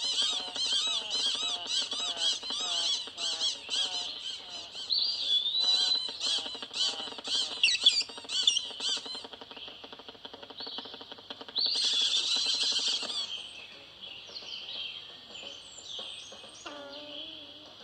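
Small birds chirping in quick, repeated calls, several a second, for the first nine seconds or so. About twelve seconds in comes a louder, harsher burst of calling, followed by fainter scattered chirps.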